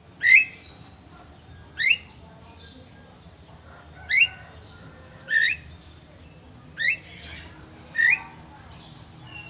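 Javan myna calling repeatedly: six short, sharp notes that each sweep quickly upward in pitch, spaced about one and a half seconds apart, with faint softer chatter between them.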